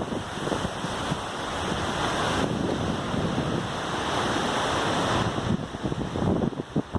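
Storm wind blowing over the microphone: a steady rushing noise that grows louder about two seconds in and eases again near the end.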